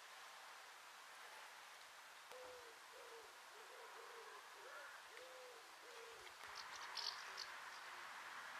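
Faint bird calls: a run of low, soft cooing notes repeated for about four seconds, then a brief burst of high chirps, over light hiss.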